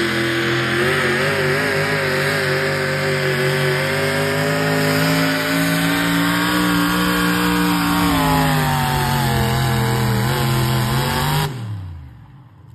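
Super modified four-wheel-drive pulling truck's engine running at full throttle as it drags the weight sled, its pitch wavering, then falling over the last few seconds of the pull. About eleven and a half seconds in the sound drops away abruptly.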